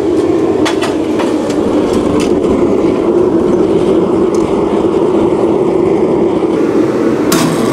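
Forge burning with its blow-dryer blower forcing air in: a steady rushing noise. A few light clicks, and a sharper knock near the end.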